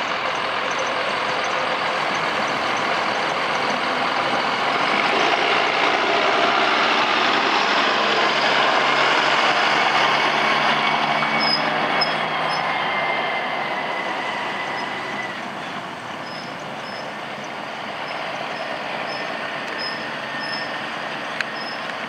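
Tractor engine and trailed potato harvester machinery running steadily. The noise grows louder a few seconds in and eases off about two-thirds of the way through.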